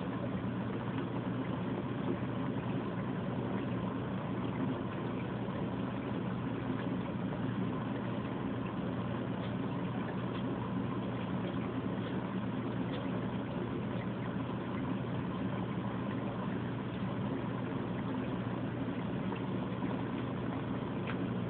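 Aquarium pump running with a steady, unchanging hum and a faint noise of moving water.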